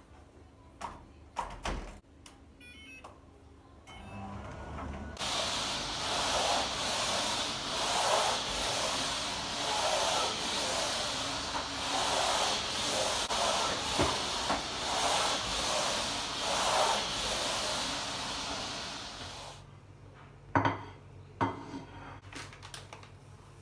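A steady hiss lasting about fifteen seconds, starting and stopping abruptly, with light clicks and knocks before it and two sharp knocks after it.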